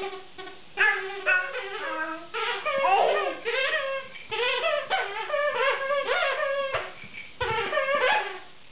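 A dog's plush snake toy squeaking again and again as a black Labrador chews it: a string of short squeaks, many sliding up or down in pitch, with brief gaps between them.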